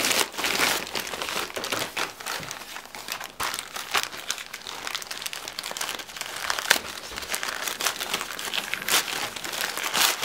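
Plastic packaging crinkling and rustling continuously as a parcel is handled and unwrapped, with many sharp crackles.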